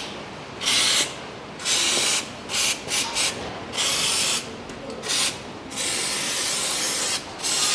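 Aerosol parts cleaner sprayed in a series of hissing bursts, some short and some longer, with the longest near the end. It is washing spilled oil off the area around a newly fitted oil filter so that it will not drip.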